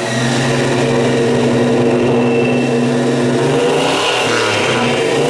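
1970 Dodge Charger's 440 big-block V8 running at a steady raised speed, then its pitch shifts as the throttle is worked about four seconds in.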